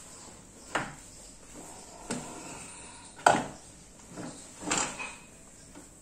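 Several separate knocks and clunks as an office chair is handled, turned over and set upright on its five-star base and casters; the loudest knock comes a little after three seconds in.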